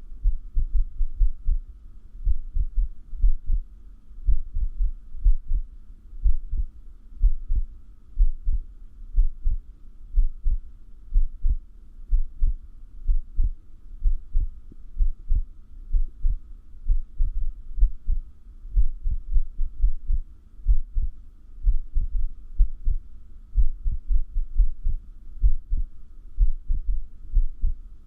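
Human heartbeat picked up against the chest: a run of low thumps at about one a second, unevenly spaced, over a faint steady hum. The uploader says the irregular beats of an arrhythmia clearly increase while the breath is held.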